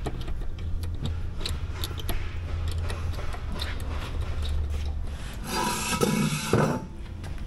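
Hand tools and metal parts clicking and scraping as a motorcycle's rear wheel is worked on from below, with one louder rasping scrape about five and a half seconds in. A low steady hum underneath stops shortly before the scrape.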